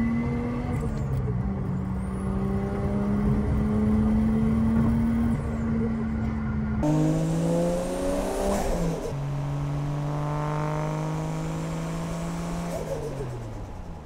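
Turbocharged 1JZ straight-six engine of a Toyota Chaser Tourer V running under steady load. About seven seconds in the sound cuts abruptly to another stretch where the revs climb, drop, hold steady and then fall away near the end.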